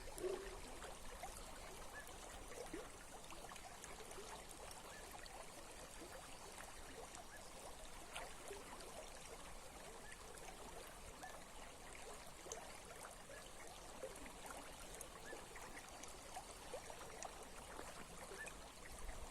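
A small brook running, faint and steady.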